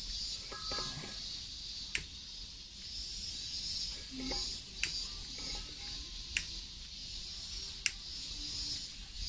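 A lighter clicking sharply, one click every second or two, as it is struck to light gas coming from the outlet of a small pressure pot, over a steady high-pitched buzz.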